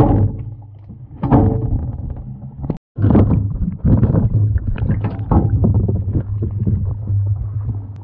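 Two knocks against a metal cooking pot, each followed by a short ring of the pot, as green bananas go in. Then a steady low rumble with splashing, rubbing and small clicks as water sloshes in the pot right around the camera.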